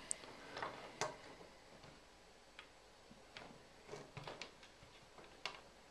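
Faint, irregular clicks and light taps of a capacitor's leads being pushed into a plastic solderless breadboard and oscilloscope probe clips being handled, with sharper clicks about a second in and near the end.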